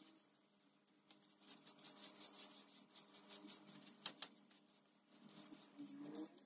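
Faint, brisk scratching strokes, several a second, of a stiff brush scrubbing a hard surface.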